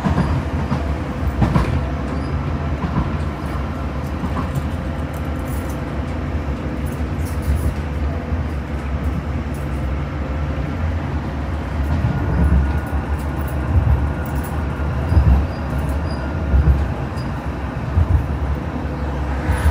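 Sheffield Supertram tram running along the line, heard from on board: a steady low rumble of wheels on rail with a faint steady whine and occasional low thumps.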